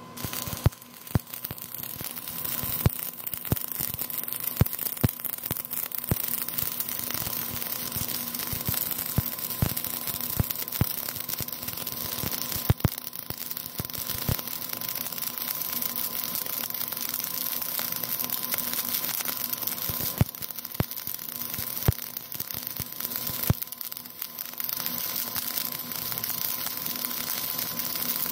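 MIG (gas metal arc) welding arc on steel plate, crackling and frying steadily with frequent irregular sharp pops as the wire feeds in to fill a 10 mm gap. The arc settles in about a second in and runs steadily after that.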